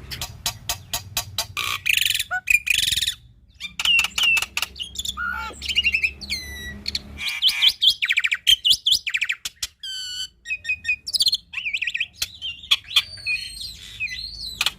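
Black-winged myna (jalak putih) singing vigorously: a fast, varied stream of rattling notes, clicks, whistles and sweeping trills, its song filled with mimicked phrases.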